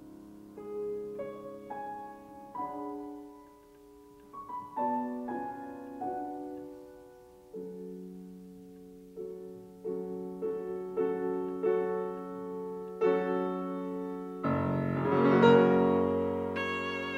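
Grand piano playing a slow passage of separate notes and chords, each left to fade before the next. Near the end a cello comes in with a louder sustained note with vibrato over the piano.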